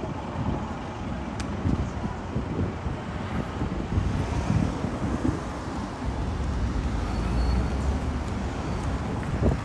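Street ambience of road traffic: a steady low hum of passing vehicles, with a low rumble that swells and fades about two-thirds of the way in.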